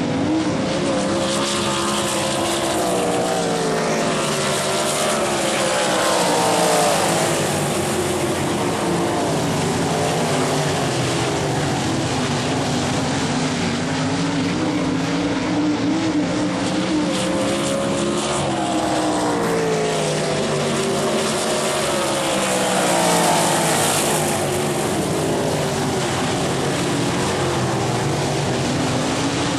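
A field of World of Outlaws 410 sprint cars, methanol-burning V8s, racing around the dirt track. Several engines run together, rising and falling in pitch as they work through the corners, and swell loudest twice as the pack passes, about 16 seconds apart.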